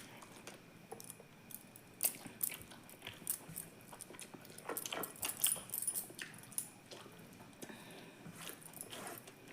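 A person chewing and eating, with irregular wet mouth clicks and smacks.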